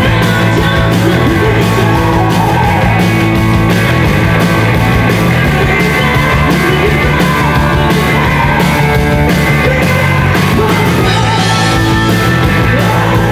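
A live rock band playing loudly and steadily, with a woman singing lead vocals into a microphone over it.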